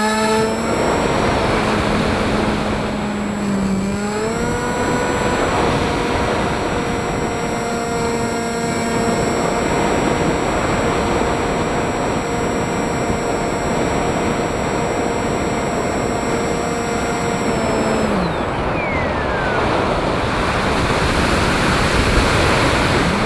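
FPV drone's electric motors and propellers whining over a rush of wind noise. The pitch climbs about four seconds in, holds steady for a long stretch, then drops off near the end as the throttle changes.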